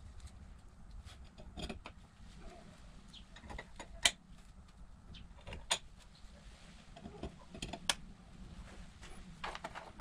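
Scattered sharp clicks and taps from gloved hands handling small objects, irregularly spaced, the loudest about four seconds in and another just before six seconds.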